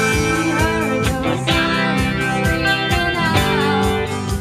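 Live classic-rock band playing: strummed acoustic guitars, electric bass and a drum kit keeping a steady beat, with a bending melodic guitar line on top.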